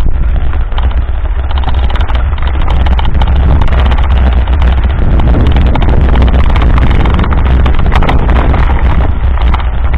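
Mountain bike rolling fast over a rough dirt track: a dense, steady clatter of rattles and knocks from the bike and its mounted camera, with heavy wind rumble on the microphone.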